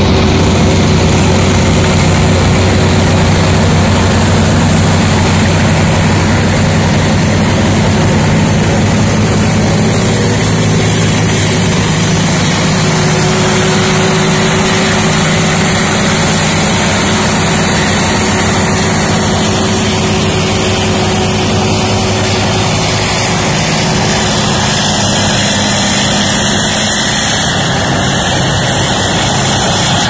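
Oshkosh rotary snow blower working at full power: its heavy engine drones steadily under the dense rush of the rotary head chewing and throwing snow.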